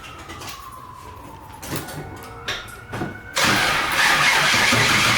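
Starter cranking the LS1 V8 of a Pontiac Trans Am, starting suddenly about three and a half seconds in and running on loud and steady, without the engine catching. This is a no-start after new coil packs were installed. Before it, a faint whine falls and then rises, with a few clicks.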